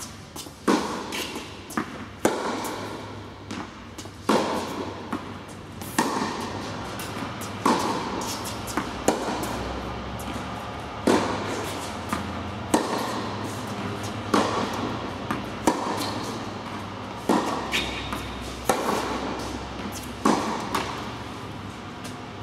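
Tennis rally on an indoor hard court: rackets striking the ball and the ball bouncing, sharp pops every second or two that echo around the hall.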